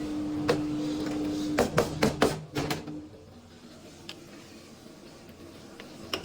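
Metal cookware and utensils clattering in a kitchen: a quick run of clanks and knocks about two seconds in. Before them a steady hum cuts off, and the rest is quieter.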